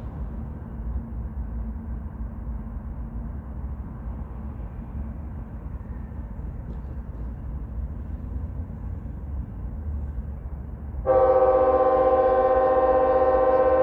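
Low rumble of an approaching CSX freight train, then about eleven seconds in the locomotive's horn cuts in suddenly and is held as a loud chord of several notes.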